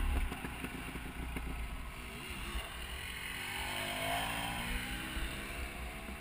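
A dirt bike riding past, its engine note rising and then falling as it goes by about three to five seconds in, over other dirt bikes idling close by.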